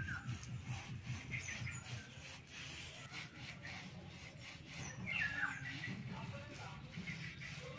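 Small birds chirping in short falling calls a few times, the clearest about five seconds in, over a low steady background hum.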